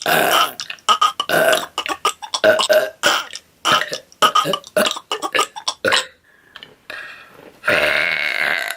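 A girl burping: a rapid series of short burps for about six seconds, then one longer, drawn-out burp near the end.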